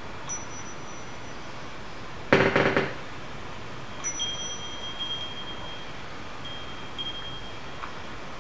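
Clear, high, chime-like ringing tones, struck again several times and each ringing for a second or two. A loud rattling clatter comes about two and a half seconds in.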